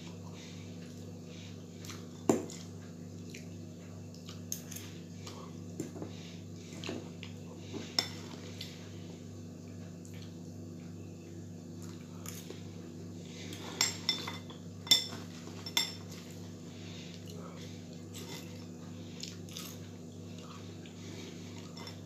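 A metal fork clinking and scraping against a ceramic bowl of french fries while eating, in scattered single clinks. The sharpest is about two seconds in, with a cluster of clinks around the middle, over a steady low hum.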